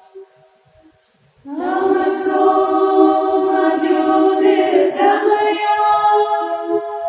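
Unaccompanied choir singing a long held note that starts about a second and a half in after a brief pause, with a slight change of note near the middle.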